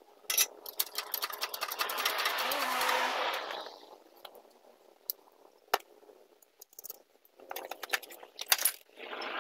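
Rapid metallic clicking and rattling over a rushing noise for about three seconds as the motorcycle is raised on a lift. A few single clicks follow, then a second burst of rattling near the end as the slack drive chain and rear wheel are handled free.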